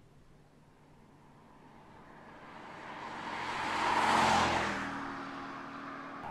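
BMW M4 Convertible with its twin-turbo straight-six driving past: tyre and engine sound builds to a peak about four seconds in. After that the engine note drops in pitch and fades as the car pulls away.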